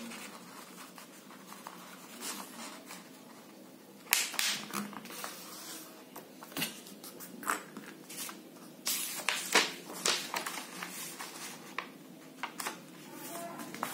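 A square of origami paper being folded corner to corner and creased along the diagonal: irregular rustles and crackles of the paper under the fingers, louder about four seconds in and again around nine to ten seconds.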